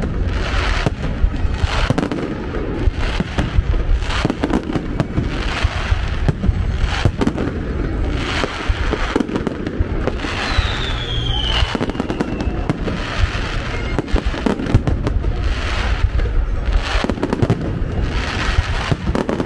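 Fireworks display: shells bursting one after another in a dense run of bangs, with a falling whistle about ten seconds in.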